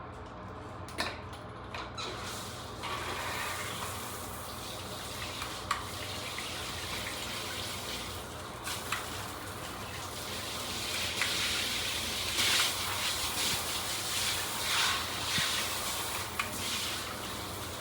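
Water spraying from a handheld filtered shower head, an even hiss that starts about two seconds in and grows stronger later, with a few clicks and knocks of handling.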